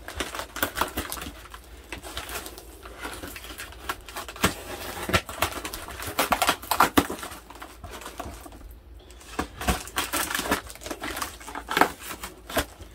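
Knife slitting packing tape and cardboard along the seam of a taped-up box: an irregular run of scratching, crackling and tearing, with a short pause a little before nine seconds in.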